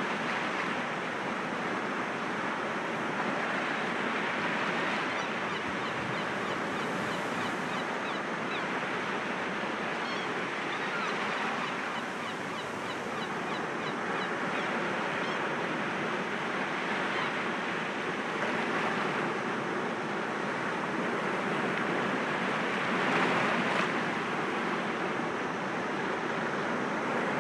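Sea waves breaking gently against rocks: a continuous rush of surf that swells and eases every several seconds, the biggest surge near the end.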